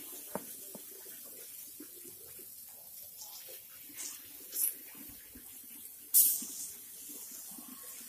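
Vegetables sizzling on a ceramic tile over a small wood fire, with a knife scraping and tapping on the tile and a few short, sharp hisses, the loudest about six seconds in.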